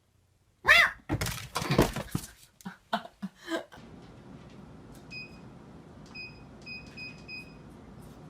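Several loud, short pitched cries or yelps in quick succession, then a steady hiss with about five short beeps, the last few close together.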